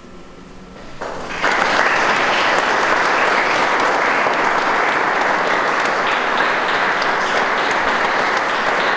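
Audience applauding. It begins faintly about a second in, swells suddenly into full, steady applause and keeps going.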